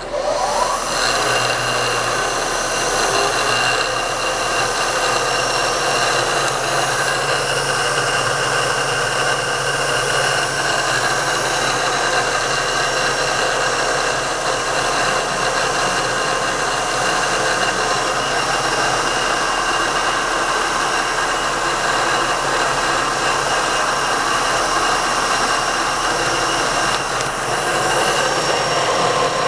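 An electric machine motor switching on with a click and winding up over about a second, then running steadily with a many-toned whine.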